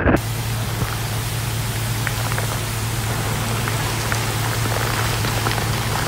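Heavy wind-driven rain hissing steadily, with scattered small drop ticks and a steady low hum underneath.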